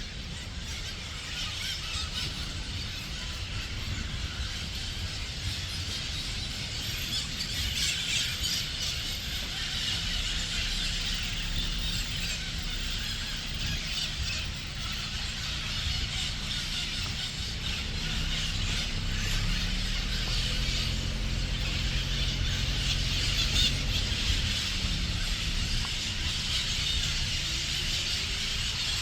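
Rural outdoor ambience: a dense, continuous chorus of high-pitched animal calls. A low hum comes in partway through and grows strongest in the second half.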